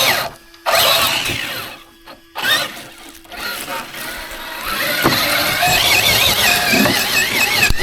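RC car's electric motor whining, its pitch rising and falling with the throttle. It cuts out briefly three times in the first few seconds, then runs on steadily.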